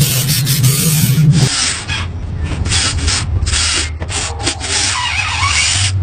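Toy excavator's bucket scraping and digging through sand in a run of gritty, irregular rasps, with a low hum that stops about a second and a half in.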